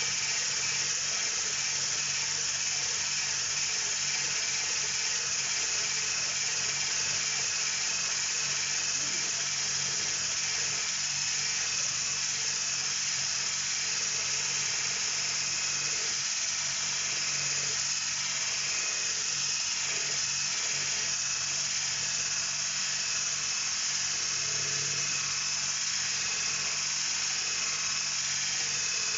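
Handheld electric whisk (a stick blender with a whisk attachment) running steadily while it whisks chocolate cake batter in a stainless steel bowl: a continuous high-pitched motor whine with a low hum beneath.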